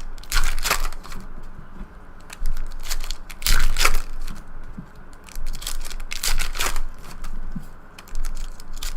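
Trading-card packs and cards being handled: irregular crinkling, tearing and rustling with quick scraping strokes, loudest about half a second in, around three and a half seconds in and past six seconds in.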